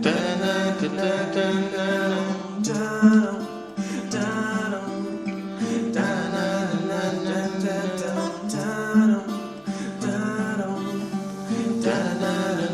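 Song's instrumental passage with no lyrics: guitar with a held melodic line over it, its phrase repeating about every six seconds.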